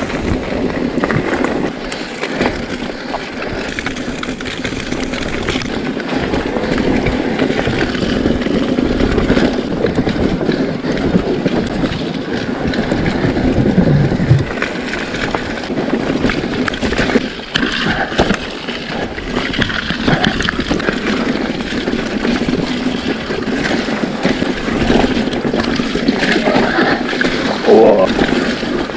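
Mountain bike being ridden along a trail: tyres rolling over the ground with frequent clatter and knocks from the bike.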